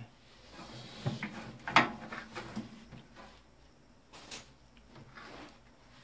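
Knocks and clicks from a microwave oven being handled before it is taken apart: a few scattered sharp knocks, the loudest a little under two seconds in.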